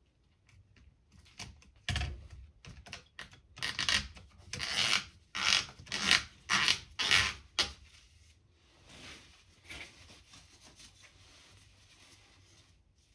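A cloth rubbing back and forth inside the steel compression cylinder of an Air Arms TX200 air rifle while it is cleaned. A quick run of about ten scrubbing strokes is followed by fainter rubbing.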